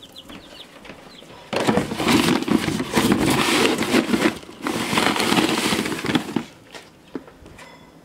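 Plastic feed bag rustling and crackling as a scoop digs into chick feed crumbles, for about five seconds, with a few faint chick peeps near the start and the end.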